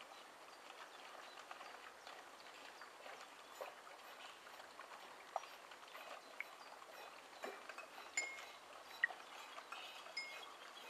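Faint water music played with cups, a bucket and a metal pot: scattered drips, small splashes and short plinks of water, with a few sharper clinks in the second half.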